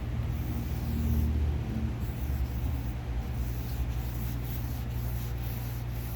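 A steady low hum with faint, repeated rubbing strokes over it: abrasive paper sanding a scratch out of car paint.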